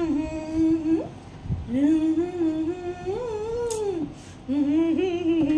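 A woman humming a slow tune with her lips closed: long held notes that glide gently up and down, in three phrases. A single short click falls about three and a half seconds in.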